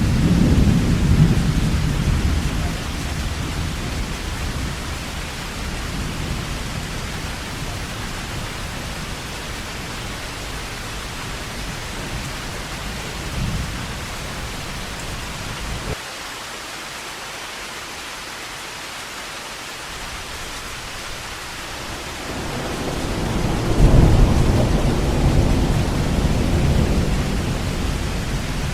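Heavy rain falling in a steady hiss, with rolling thunder: a low rumble dies away over the first few seconds, and another swells about three quarters of the way through before slowly fading.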